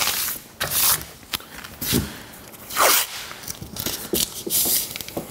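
Blue masking tape being pulled off the roll in several short rasping strips and rubbed down by hand onto a Harley-Davidson saddlebag lid.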